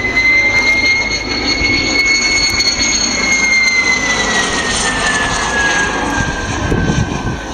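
A de Havilland Vampire jet flying past, its engine whine high and steady over a low rumble. About two-thirds of the way through the whine drops in pitch as the jet passes and moves away.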